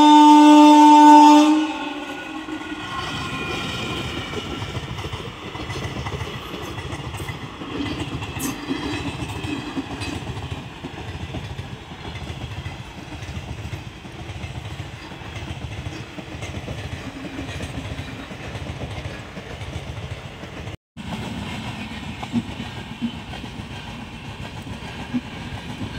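A train horn sounds loudly for about two seconds, then a passing train rolls by with an even clatter of wheels over the rail joints.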